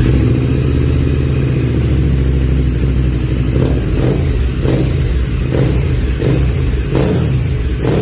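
KTM 1290 Super Duke GT's V-twin running through an Arrow Race-Tech titanium slip-on exhaust: a steady idle at first, then short throttle blips about once a second from about halfway in.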